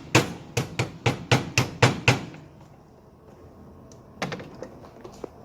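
Rapid, evenly spaced knocks, about four a second, as a part is driven into place in a car's engine bay; they stop about two seconds in, and one more knock comes near the end.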